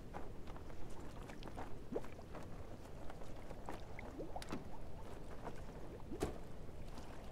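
Water lapping around a small sailboat's hull, with scattered small plops and drips. A few of them bloop up or down in pitch, and a sharper plop comes near the end.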